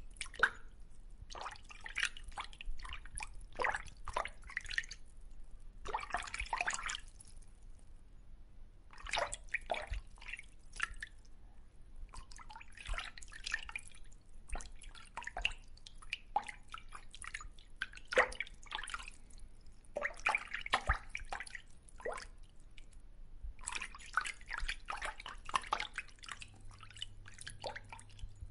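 Water dripping: quick irregular drips and splashes in clusters a second or two long, with short pauses between them.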